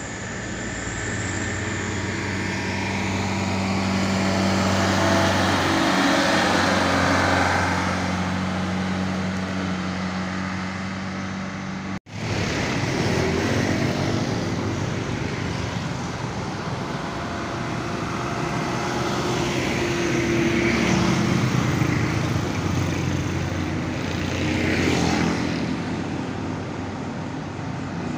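A loaded sugarcane truck's diesel engine drones steadily as it comes past, swelling to its loudest about six seconds in. After an abrupt cut, road traffic of cars and motorcycles passes, swelling twice.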